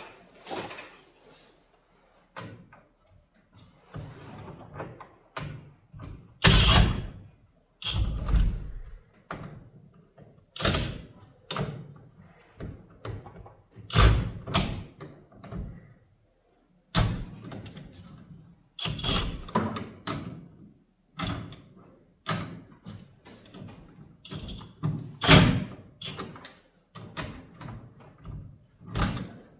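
Irregular metallic clanks, knocks and a few heavier thuds from metal hardware being handled and fitted while a roller bracket goes onto a garage door panel.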